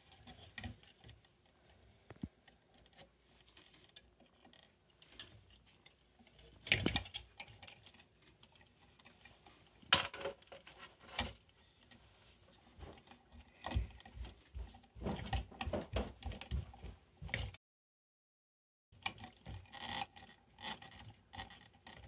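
Hand-handling of doorbell wires and plastic twist-on wire nuts: scattered small clicks, rustles and knocks, with sharper knocks about 7 and 10 seconds in and a busier run of small clicks a little past the middle. The sound drops out completely for about a second near the end.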